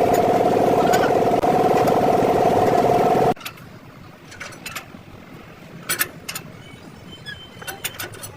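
A motor-driven machine runs steadily with a fast, even pulsing and cuts off suddenly about three seconds in. Light, sharp metallic clicks and knocks follow.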